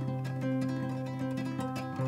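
Background music: plucked strings playing a melody over a held low note.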